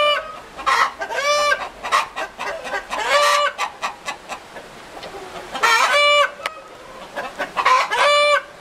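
Chickens calling: about five loud, pitched calls spaced a second or two apart, with softer clucks in between.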